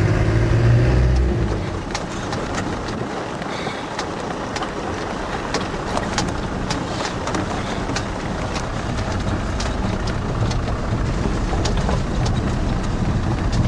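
Interior noise of a Land Rover Defender 90 with a 300Tdi four-cylinder turbo-diesel, driving along a rough lane. A low engine hum is strong for the first second and a half, then sinks under a steady rush of wind and tyre noise with frequent small rattles and knocks.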